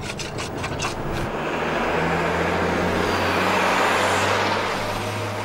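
A motor vehicle passing by: engine hum and tyre noise swell to a peak about three to four seconds in, then fade away. A few light clicks come at the start.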